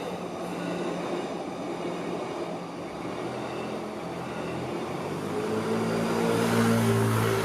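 Train running past on the tracks, a rumble of wheels on rail with a steady low hum, growing louder in the last couple of seconds as it draws near.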